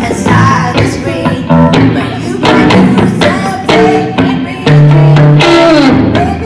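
Electric guitar played solo, single notes and licks with bends and slides; a low note rings out loudly about five seconds in, followed by a falling slide.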